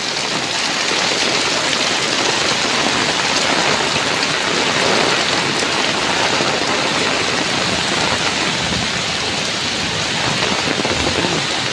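Heavy rain pouring down steadily on pavement and foliage, a dense unbroken hiss with no let-up.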